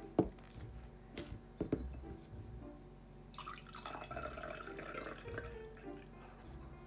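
Water trickling and dripping, with a few sharp clicks in the first couple of seconds, over background music.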